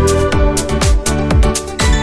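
Background music with a steady electronic beat and a deep bass kick about twice a second.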